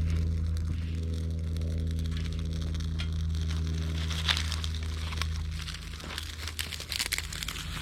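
Small fire catching in a twig stove: fatwood kindling and thin sticks crackling and snapping, the crackles growing thicker from about three seconds in, over a steady low hum.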